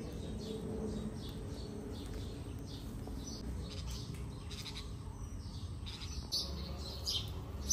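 Small birds chirping: short, high, falling chirps repeat several times a second and grow louder near the end.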